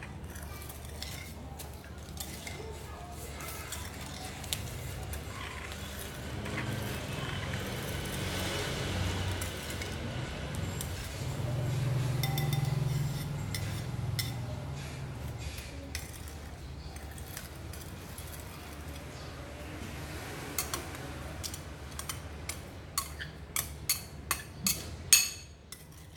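Metal spoon clinking against a ceramic bowl while stirring sauce: a run of short, sharp clinks in the last few seconds, the loudest one just before the end, over a low steady background noise.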